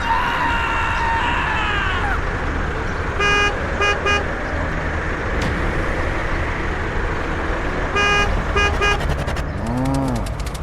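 Vehicle horn tooting in two groups of three short honks, a few seconds apart, over a steady low hum.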